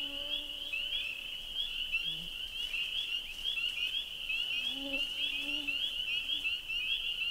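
A dense chorus of spring peepers: many short, high, rising peeps overlapping without a break, with a few lower, longer notes sounding underneath now and then.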